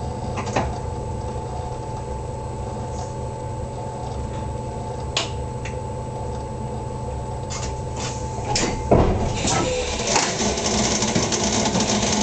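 Cab of a stopped electric train: a steady hum of on-board equipment with a few sharp clicks. About nine seconds in there is a louder knock, after which a broader rushing noise takes over from the hum.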